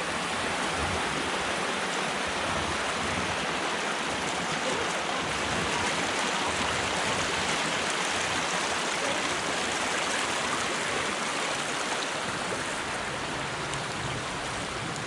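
Rushing stream water: a steady, even wash of noise.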